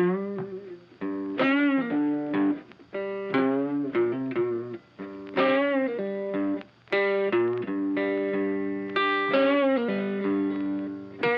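Background music: a guitar playing a melodic riff, with several notes bent up and down in pitch and short pauses between phrases.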